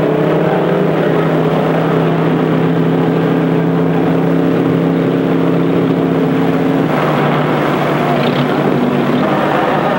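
An engine running at a steady speed with an even droning hum, its tone changing about seven seconds in.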